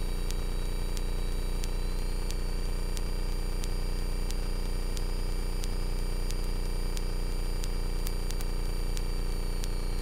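Carbon Cub FX-3's engine and propeller giving a steady, even low drone inside the cockpit, at reduced power on the base leg of the approach to land.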